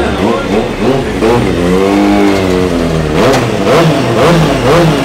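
Kawasaki 636 sport bike's inline-four engine being revved: one long climb and fall in pitch, then four quick throttle blips near the end.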